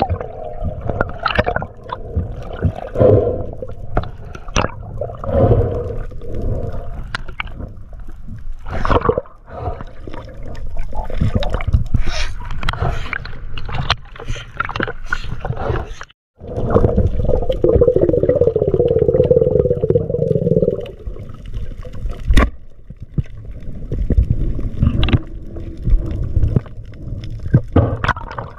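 Underwater sound through an action camera's housing: water rushing and bubbling with frequent knocks and clicks, as a speargun, its line and a speared fish are handled. The sound drops out for a moment about halfway through.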